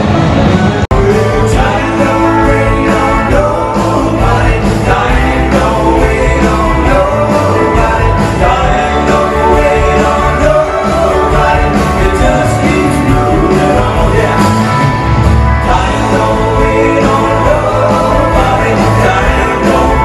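Live country-rock band playing: electric guitars and drums, with a man singing. A brief cut about a second in breaks from a few moments of a rock band with orchestra.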